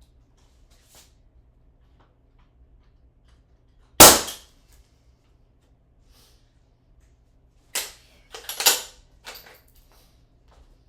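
Ramset powder-actuated nail gun firing once, a single loud shot about four seconds in, followed a few seconds later by a cluster of sharper clatters and knocks.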